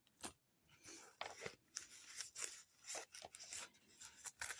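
Faint rustling and crinkling of paper packaging being handled, in short irregular crackles and scrapes.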